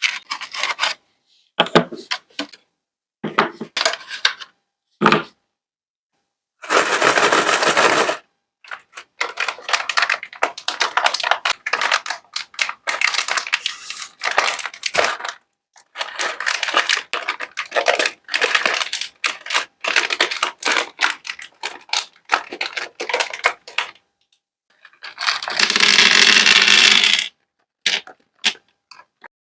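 Sweets being handled and dropped into a party platter: a run of clicks, rattles and scrapes, with two longer, denser bursts of clattering, one about seven seconds in and one near the end.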